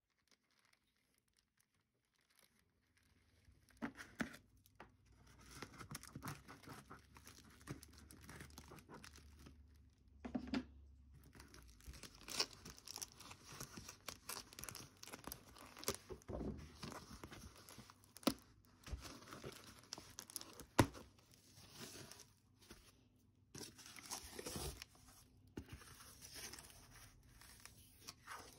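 Packing tape being pulled and torn off a cardboard shipping box, with the cardboard flaps scraping and crinkling and scattered sharp knocks, starting a couple of seconds in.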